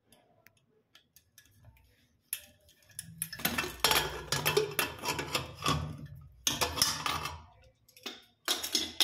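Aluminium pressure cooker being opened: light clicks, then the lid is worked loose and lifted off with metallic scraping and clattering from about three to seven and a half seconds in, and another clank near the end.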